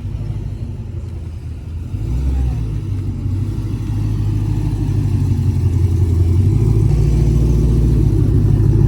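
Car engine running loud and close, a deep rumble that grows louder over several seconds with a few rises in engine pitch.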